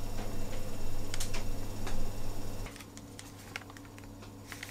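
Scattered light clicks and taps of a spoon against a ceramic soup bowl, over a steady low hum that stops about two-thirds of the way through.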